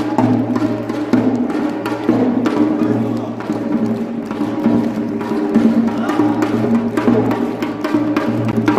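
Korean pungmul percussion: buk barrel drum and small sogo hand drums beaten in a fast, driving rhythm of sharp strikes.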